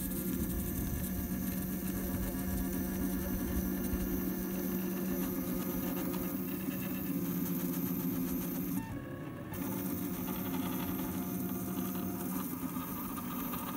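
Clay 3D printer running: a steady motor hum with several held tones that shift slightly in pitch partway through, broken by a brief drop about nine seconds in.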